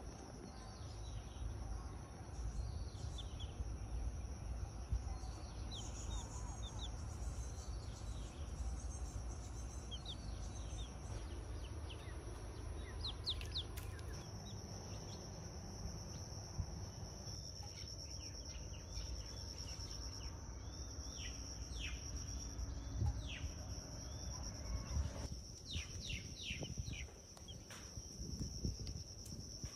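Baby chick peeping in short, falling chirps, repeated on and off, over a steady high insect drone and a low background rumble.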